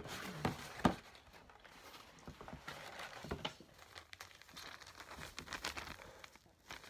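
Soft crinkling and rustling of packaging as slime add-ins are handled, with a few small knocks and clicks: two sharper ones within the first second and another about three and a half seconds in.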